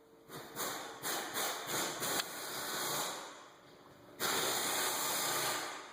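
A hiss in two stretches: an uneven one over the first three seconds, then a steady one of nearly two seconds near the end that cuts off suddenly.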